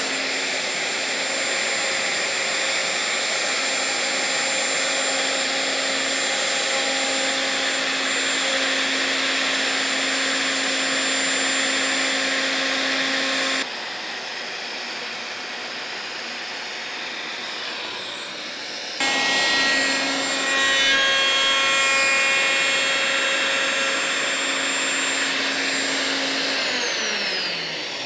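Plunge router running on a guide rail, cutting a rebate in a wooden board. Its sound changes abruptly twice partway through, and near the end the motor's whine falls in pitch as it spins down after being switched off.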